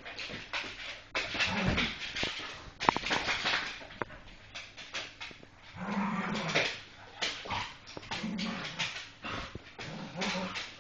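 Staffordshire bull terriers tussling: repeated short bursts of dog vocalising, whines among them, with scuffling noise in between, about four louder bursts spread through.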